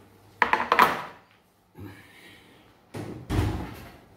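A glass baking dish and the metal oven rack clattering twice in quick succession as the hot dish is taken out of the oven, then the oven door shutting with a heavy thud about three seconds in.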